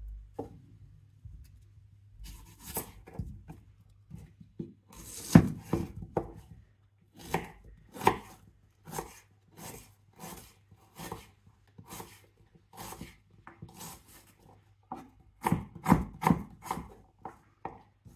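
Kitchen knife slicing an onion on a wooden cutting board: a steady series of blade knocks on the board, roughly one to two a second, after a quieter start.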